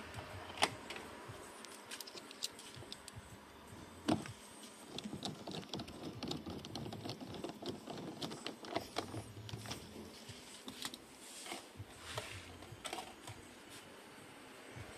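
Clicks, taps and light rattles of a Chevrolet Cobalt's plastic door trim and a screwdriver as the door-handle and armrest trim pieces are handled and fitted back. There are sharper knocks about half a second and four seconds in, then a run of quick light clicks.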